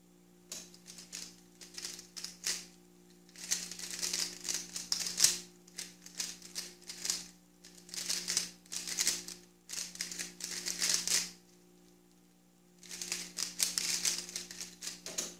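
Guoguan Yuexiao 3x3 speedcube turned rapidly by hand during a timed solve: runs of fast plastic clicking and clacking, broken by short pauses and by a longer pause of about a second and a half near the end before a last burst.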